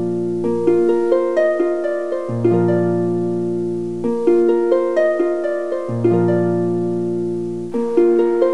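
Background music of quick, gently plucked notes that ring and fade, over a low bass note held for a few seconds at a time and changing about twice.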